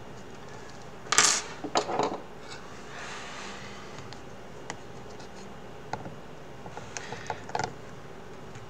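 Handling noise from working a fabric strap through the plastic shell of a VR headset with needle-nose pliers: a sharp rustling scrape about a second in and another around two seconds, then scattered light clicks and taps of the pliers and plastic, with a small cluster near the end.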